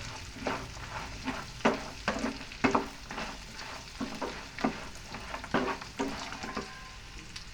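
A spoon stirring and scraping nuts and roasted gram frying in oil in a pan, about two strokes a second over a steady sizzle, as they are fried on a low flame until light brown.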